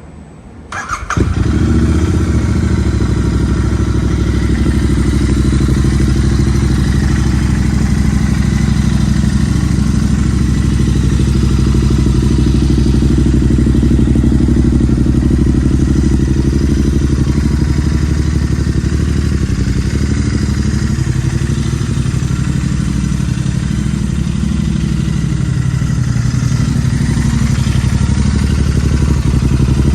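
Royal Enfield Interceptor 650's parallel-twin engine starting about a second in, then idling steadily through its exhaust.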